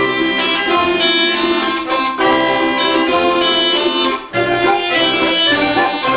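Russian folk-instrument ensemble playing a lively tune, with accordion holding sustained chords, and a brief break in the sound about four seconds in.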